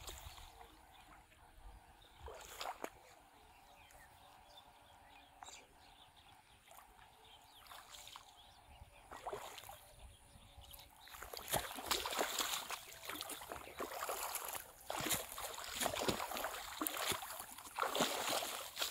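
Shallow paddy water splashing and sloshing with rice plants swishing as a person wades and jabs a long bamboo fish spear into the water; faint at first, then a run of loud, irregular splashes from about halfway through.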